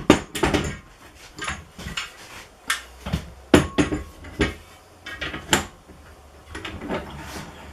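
A metal clamp being set across the top of a glue-up and tightened, for even clamping pressure: irregular metallic clanks and clicks, the sharpest right at the start and about three and a half seconds in.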